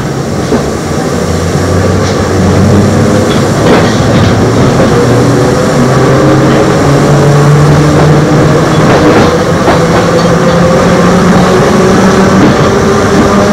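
Eizan Electric Railway train's nose-suspended (tsurikake) traction motors and gears whining as the car pulls away and gathers speed. The hum rises steadily in pitch over wheel and running noise, with a few faint clicks from the rails.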